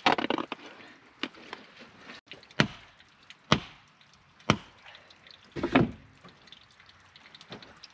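Wooden stakes being driven into wet ground, with sharp wooden knocks about once a second and a short scraping rustle near the end.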